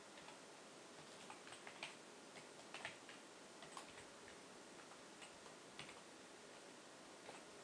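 Faint, irregular clicks of computer keyboard keys being typed, over a low steady hiss.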